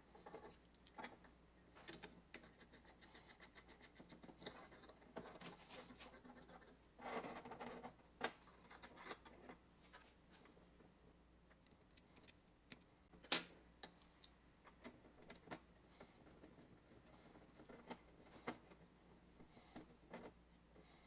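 Faint, scattered clicks and clinks of the oil can's small metal pump parts being handled and fitted back together, with a short rustle about seven seconds in.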